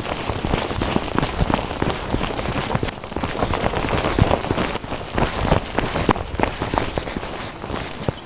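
Footsteps on hard paved ground close to a handheld camera: a dense, irregular crackle of many small clicks and scuffs.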